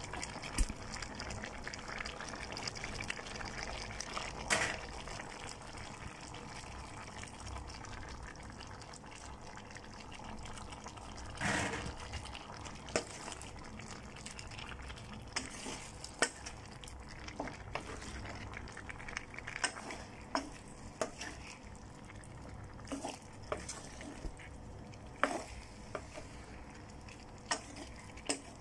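Wooden spatula stirring chicken, gizzards and liver through a thick garlic sauce in a pan, with a steady sizzle of the food cooking and scattered scrapes and knocks of the spatula against the pan.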